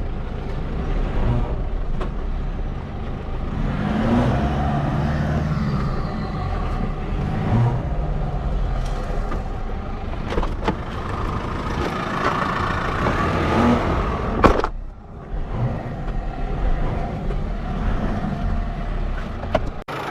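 Four-wheel-drive engine revving up and down again and again under load while the bogged vehicle tries to drive out, with a rushing noise of wheels and mud throughout. There is a sharp break about two-thirds of the way in.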